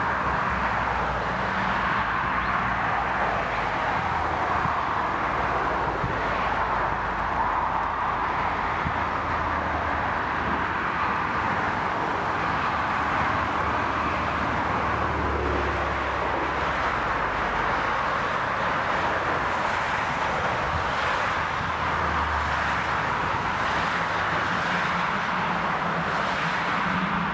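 Jet engines of a twin-engine widebody airliner coming in to land, a steady rushing jet noise with a low rumble underneath.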